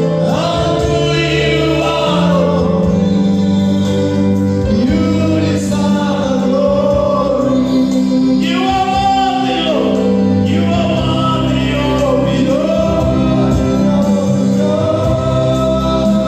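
Gospel worship music: a group of voices singing together over sustained instrumental chords and bass notes.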